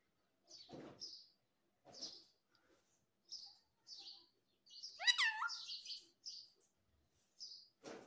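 Rose-ringed (Indian ringneck) parakeet giving short high chirps, about one a second, with a louder squawk that falls in pitch about five seconds in.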